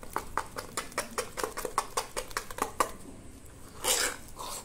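A steel spoon beating fermented black gram (biri) batter in a steel bowl, clicking against the bowl about five strokes a second. This is the batter being whipped in one direction to trap air. About four seconds in the spoon gives a longer scrape along the bowl.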